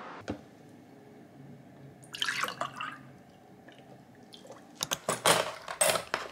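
Water splashing and dripping, probably at a sink, with a click at the start, a short splash about two seconds in, and a quick run of light knocks and splashes near the end.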